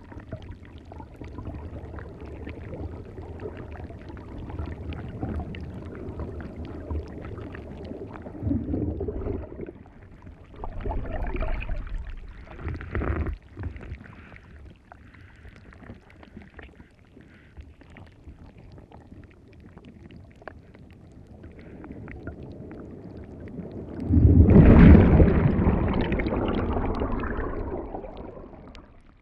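Ocean waves washing onto a beach: a steady wash with a few smaller surges, then a bigger wave breaking near the end, its rush fading away.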